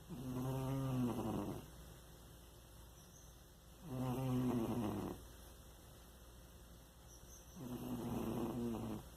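Domestic cat snoring loudly, like a person: three drawn-out snores of about a second and a half each, one every four seconds or so.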